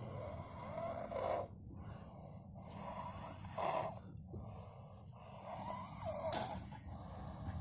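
A child snoring noisily in sleep: three rough, rasping snores about two and a half seconds apart.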